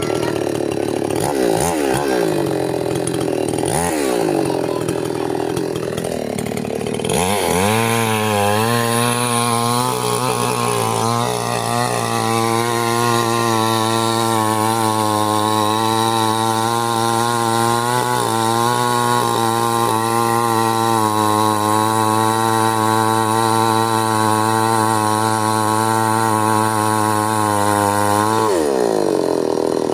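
Two-stroke chainsaw engine running low with a few short blips of throttle, then revved up sharply about seven seconds in and held at steady high revs for about twenty seconds before dropping back down near the end.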